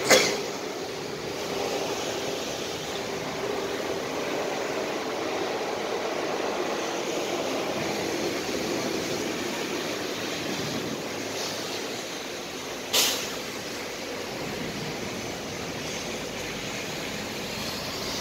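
Heavy rain falling steadily, with vehicles splashing through floodwater on the road. Two sharp knocks, one at the very start and a smaller one about 13 seconds in.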